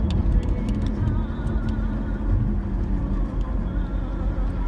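Vehicle cabin noise while driving on a paved road: a steady low rumble of engine and tyres, with scattered small clicks and rattles.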